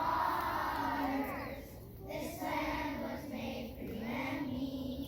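A group of young children singing a song together in unison, holding long notes that step up and down in pitch.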